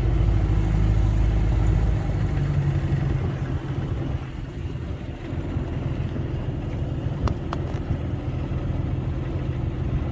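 Boat motor running steadily while the boat motors along, with a low hum that eases a little after about two seconds. Two light ticks come about seven seconds in.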